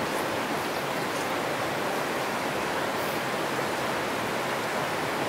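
Steady rushing of a shallow, rocky creek flowing over stones, an even hiss of moving water with no rise or fall.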